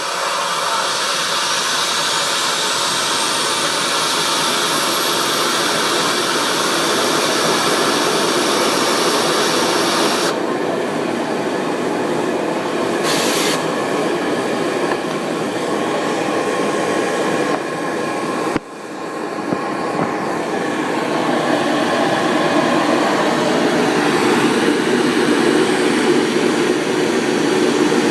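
Homemade jet engine built from a small Garrett turbocharger, running with a loud, steady roar. A thin high whine rises in pitch over the first several seconds as the turbo spools up. About ten seconds in the highest hiss falls back; after a brief dip a little past halfway, the roar builds again.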